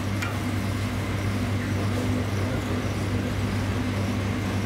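A steady low mechanical hum with a hiss over it, while cheese and cream bubble in a pan on a gas flame and a silicone spatula stirs them; a faint tick shortly after the start.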